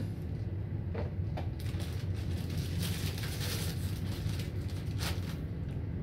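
Hunter Original ceiling fan's motor humming steadily while it runs at a low step on a variable speed control. Scattered crackles and rustles of crunchy snacks being eaten come through over it.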